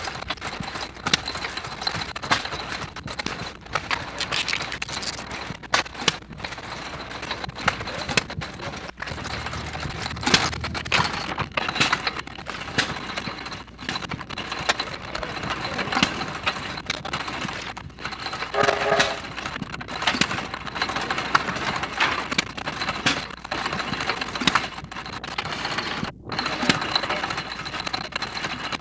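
Crackling, skipping noise of a badly worn 16mm magnetic film soundtrack, full of irregular clicks and dropouts, with a brief pitched tone about two-thirds of the way through.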